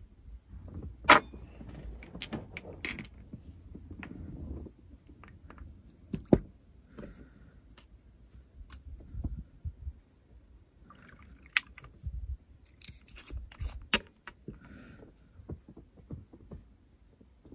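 Small handling sounds: scattered light clicks, taps and rustles as tiny plastic aircraft models, decal sheets and small glass bottles of decal solution are picked up and set down on a cloth mat. The sharpest click comes about a second in.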